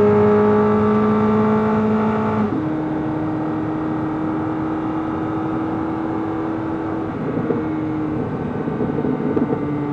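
Chevrolet Corvette C8 Z06's 5.5-litre flat-plane-crank LT6 V8 pulling at high revs in third gear, its note rising slightly. About two and a half seconds in it upshifts sharply to fourth, then runs steadily at lower revs.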